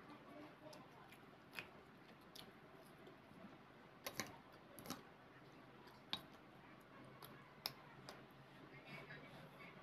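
Faint close-miked eating sounds of chole bhature: puffed bhatura bread being torn and chewed, with about half a dozen short sharp clicks scattered through, loudest a little before the middle.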